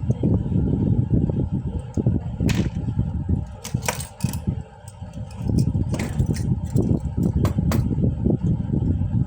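Several sharp clicks and knocks, scattered between about two and a half and eight seconds in, over a steady low rumble, as of a stapler and tools being handled during repair.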